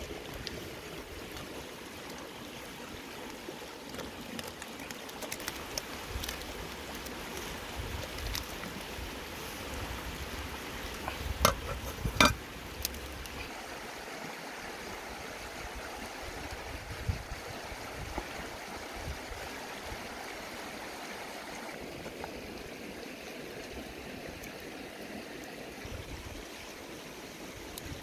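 Steady rush of a river flowing over rocks, with two sharp knocks close together about halfway through.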